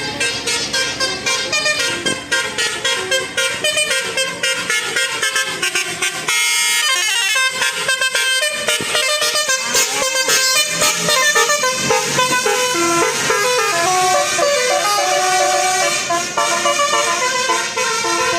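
Bus 'telolet' multi-tone air horn playing a long run of short notes, stepping quickly from pitch to pitch.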